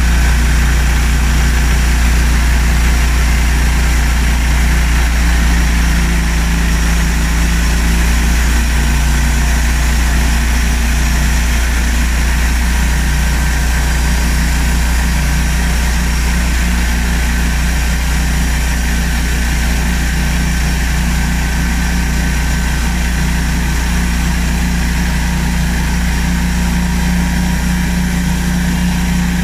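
Large band sawmill running steadily, its drive and band blade humming as the saw head feeds along a big spruce log to cut it, growing slightly fainter as the head moves away.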